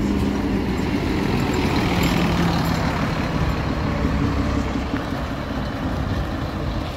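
Intercity coach's diesel engine running as the bus pulls in, a steady low rumble with engine tones that dip slightly in pitch a few seconds in.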